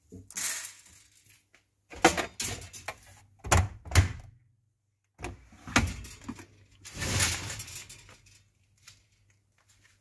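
Handling knocks and thuds, then plastic sliding and clunking as the detergent drawer of a Samsung front-loading washing machine is pulled open.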